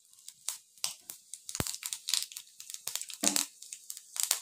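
Panch phoron (Bengali five-spice seeds) crackling in hot mustard oil in a kadai: a dense run of irregular small pops, with a few sharper cracks among them.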